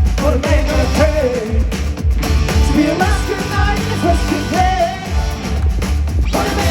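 Pop song with a singer's voice over a steady, heavy beat.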